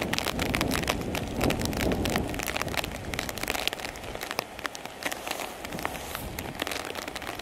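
Steady rain, with drops landing close to the microphone as many sharp, irregular ticks. A low rumble lies under it for the first two seconds or so, then fades.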